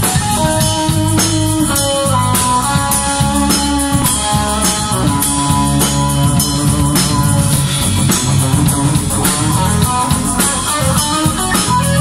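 A small live rock band playing amplified: electric guitar carrying the melody in held, bending notes over bass guitar and a drum kit keeping a steady beat.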